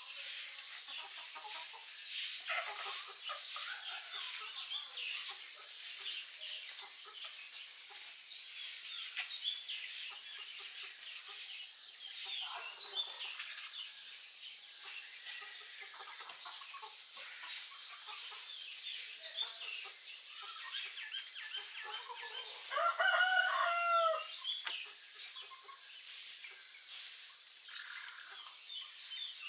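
A steady, high-pitched insect drone, with scattered short chirps over it. About 23 seconds in, a drawn-out call rises and falls for about two seconds.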